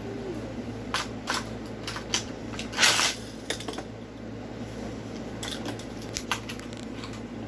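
Scattered light clicks and knocks of small objects being handled, with a short rustle about three seconds in, over a steady low hum.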